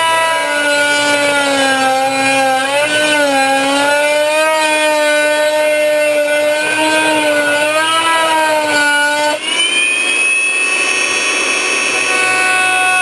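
Oscillating multi-tool with a metal-cutting blade plunge-cutting aluminum sheet: a loud, buzzing whine whose pitch sags and wavers as the blade is pressed into the metal. Its note changes abruptly about nine seconds in, after a brief dip.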